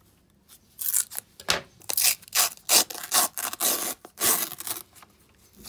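Paper wrapper of a roll of 2-euro coins being sliced and scraped open with a metal blade: a run of quick, irregular scraping strokes starting about a second in and stopping near the end.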